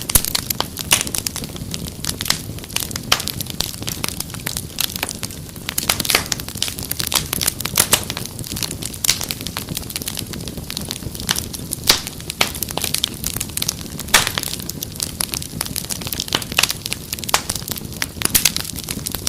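Wood fire crackling in a fireplace: dense, irregular snaps and pops over a steady low rumble of burning.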